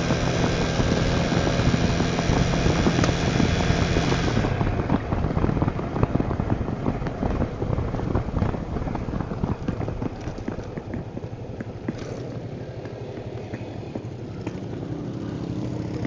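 Italika Tornado 250 motorcycle engine running while riding, with wind buffeting the microphone. About four seconds in, the engine's higher sound drops away suddenly as it eases off, leaving mostly low engine rumble and wind. Near the end, the engine pitch climbs again.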